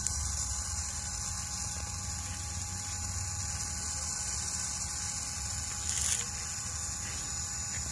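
Small electric rotisserie motor running steadily, turning the spit, a hum with a few thin steady tones over a low rumble. A brief hiss about six seconds in.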